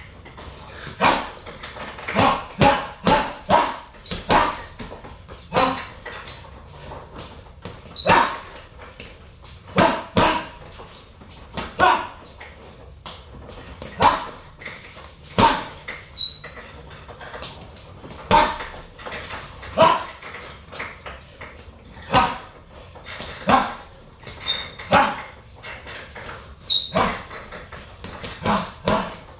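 Boxing gloves striking a hanging heavy bag, sharp smacks in single shots and quick combinations of two to four punches, a second or two apart.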